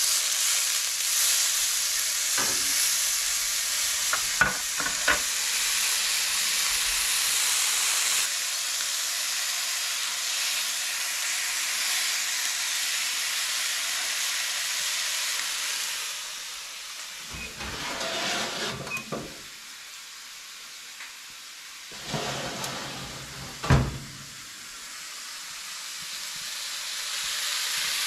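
Grouse breasts frying in butter in a hot cast iron skillet: a steady sizzle, with a few sharp clicks in the first seconds. Past the middle the sizzle drops for several seconds, with some knocks and one sharp thump, then comes back up near the end.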